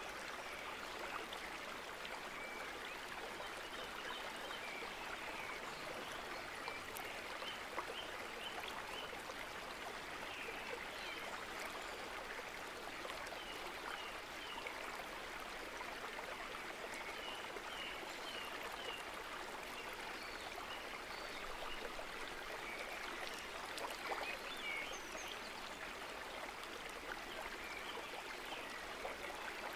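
Steady rushing of running water, like a stream, with short high bird chirps in scattered bursts over it.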